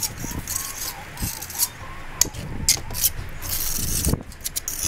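Irregular light clicks and scrapes of hand tools being worked against a concrete block wall, with a short scrape about three and a half seconds in.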